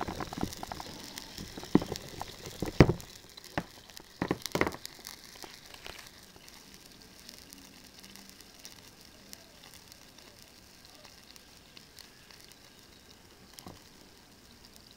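A handful of sharp knocks and clacks during the first five seconds, the loudest about three seconds in, as the electric firebox's power cord is unplugged and the metal firebox is handled. After that there is only a faint steady hiss with an occasional small click.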